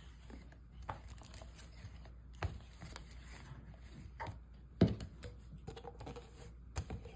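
Thick slime being rolled flat under a jar, giving soft sticky tearing and squishing, with a few sharp knocks, the loudest about five seconds in.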